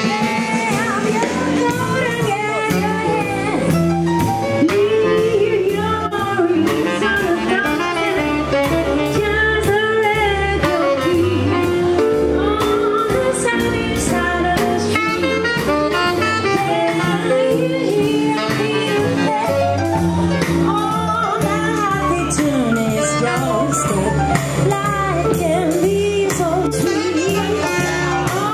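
Live jazz band playing, with a woman singing over saxophone, piano and drums at a steady swing beat.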